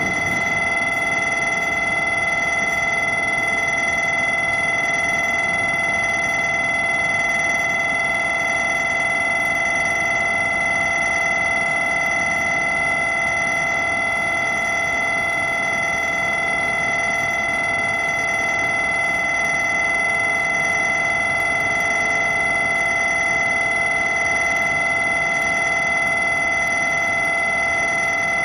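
Shinkansen platform departure bell ringing continuously at a steady pitch and level, signalling that the train at the platform is about to leave.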